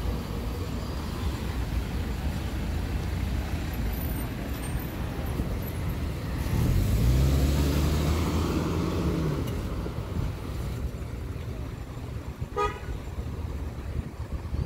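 Town street traffic: a steady rumble of engines, with a car engine passing close and swelling then fading in the middle. About three-quarters of the way through, a single short car-horn toot.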